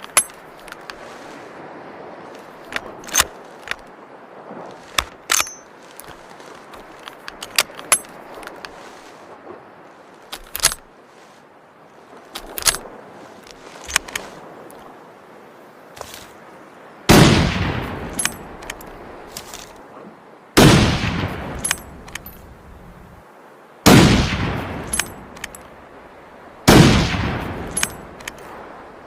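A run of sharp clicks and knocks, then four hunting rifle shots about three seconds apart, each loud with a long decaying echo.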